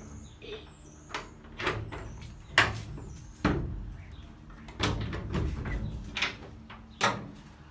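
Wooden plank door being handled and eased open: a series of irregular knocks and rattles from the door and its frame.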